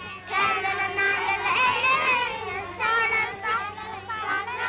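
A group of young children singing a counting song together, from an old film soundtrack with a low steady hum underneath.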